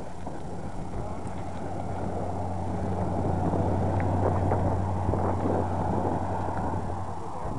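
A motor vehicle passing, its low engine hum growing louder around the middle and then easing off.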